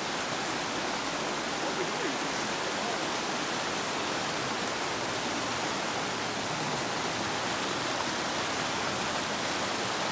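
Shallow mountain stream rushing over rocks, a steady, even sound of running water.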